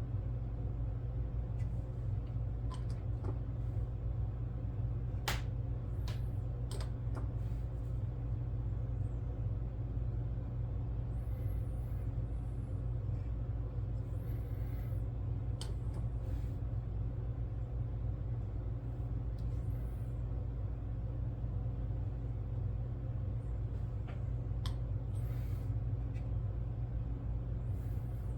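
Steady low hum of room background noise, made of several steady tones, with a few faint light clicks scattered through, such as small plastic parts being handled.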